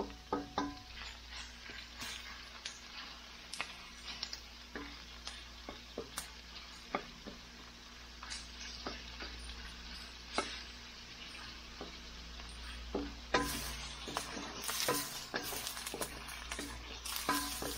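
Wooden spatula stirring and scraping chopped shrimp in a stainless steel wok, with irregular clicks of the spatula against the metal over a steady frying sizzle. The sizzle and scraping get louder in the last few seconds.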